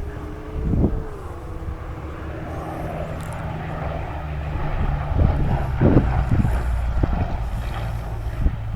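Hawker Hurricane's Rolls-Royce Merlin V12 engine running, a steady low propeller drone.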